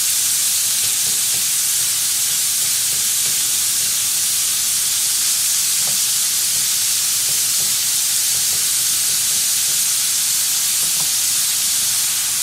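Shrimp frying over high heat in olive oil and butter with chopped garlic, a steady high sizzle with occasional faint pops.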